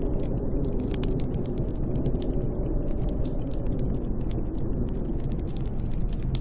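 Snowstorm wind blowing steadily as a low, even rush, with scattered sharp crackles and ticks over it.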